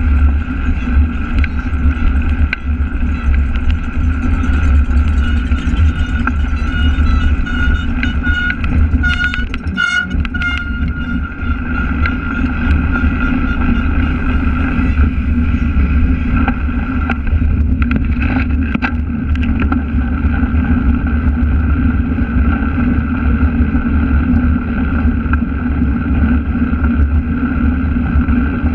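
Wind buffeting and steady rumble from a cyclocross bike being ridden over grass and a path, picked up by a camera mounted on the moving bike. A few brief, bright ringing notes come about ten seconds in.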